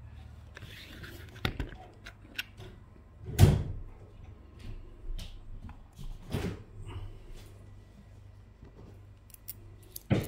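Handling knocks and clicks from the Xiegu X6100 radio's metal case and side leg being moved and set on the bench, with the loudest knock about three and a half seconds in, another around six and a half seconds, and a sharp click near the end. A faint low hum lies underneath.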